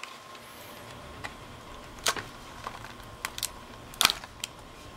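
Hard plastic blister packaging crackling and snapping as it is pried and torn open, a few sharp clicks spread through, the loudest about four seconds in.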